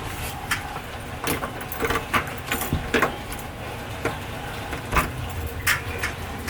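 Keys jangling, with a string of sharp, irregular clicks and knocks over a low steady rumble.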